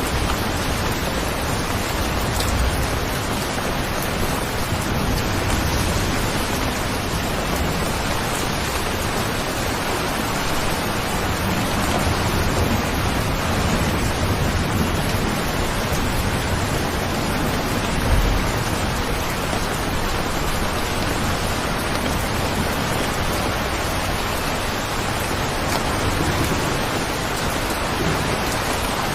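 Steady, dense rain falling with an even hiss and no breaks. A single brief low thump comes about two-thirds of the way through.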